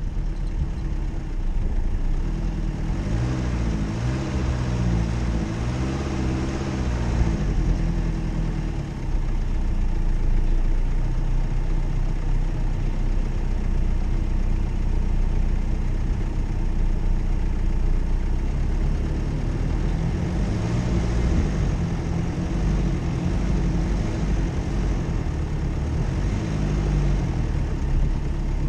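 Jeep Cherokee engine running off-road. Its note rises and falls with the throttle a few seconds in and again after about twenty seconds, and holds steadier in between.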